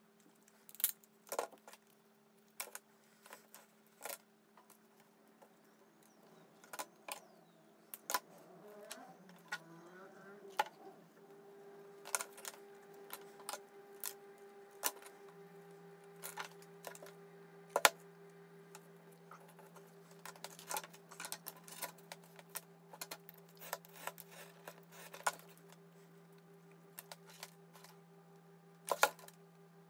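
Scattered sharp clicks and taps of scissors snipping thin greyboard and of small card pieces and tools being picked up and set down on a cutting mat, over a faint steady hum.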